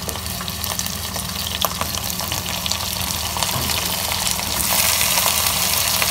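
Raw mutton pieces sizzling in hot oil with fried onions in a pan: a steady frying hiss dotted with small crackles and pops, growing louder about four and a half seconds in as the pan heats back up.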